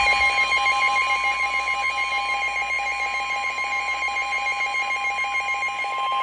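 Emergency Alert System attention tone: two steady alarm tones sounding together, the lower one pulsing slightly. It signals that an emergency broadcast, here a severe thunderstorm warning, is about to follow.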